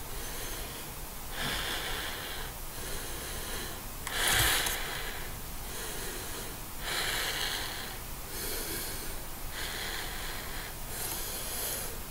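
Heavy, rasping breathing into a webcam microphone from a person in a Scream mask, slow in-and-out breaths about every second or so, with one louder breath about four seconds in.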